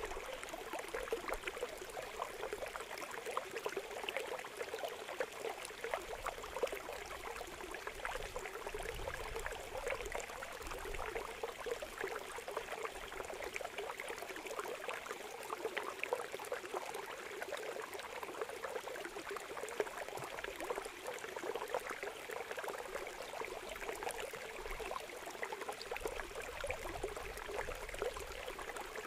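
Shallow water running steadily through a narrow cut in a mud bank, full of small puti (barb) fish splashing and flapping in the flow, with many small splashes throughout.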